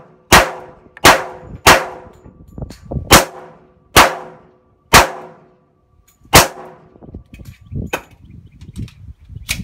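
Seven .45 ACP pistol shots from a Sig Sauer 1911 firing Federal 230-grain full metal jacket rounds, unevenly paced about a second apart, each with a ringing tail. After the last shot, about six seconds in, come lighter metallic clicks and clacks as the pistol is handled at the bench, with one sharp click near the end.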